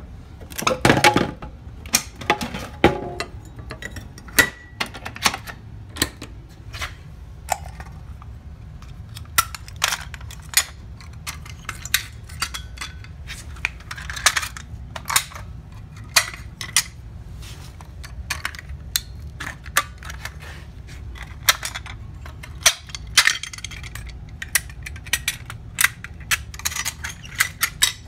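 Manual fire alarm pull stations being pulled one after another: a long irregular series of sharp plastic and metal clicks and snaps, about one or two a second, as each handle is pulled down and latches.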